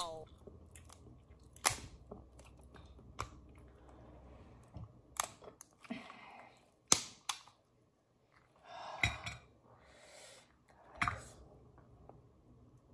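Cooked crab leg shells cracking and snapping as they are broken apart by hand, about six sharp cracks, with chewing and smacking of the crab meat between them.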